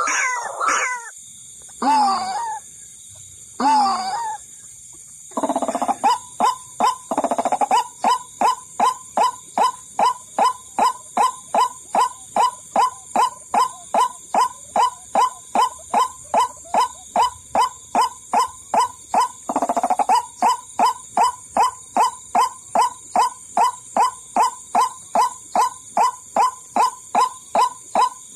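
White-breasted waterhen (ruak-ruak) calls played as a bird-trapping lure: a few rough, warbling calls, then from about six seconds a steady, even run of short hooting notes, about two a second, over a steady high hiss.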